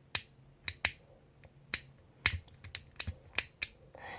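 Fidget cube's click buttons pressed over and over, giving about a dozen sharp, irregularly spaced plastic clicks.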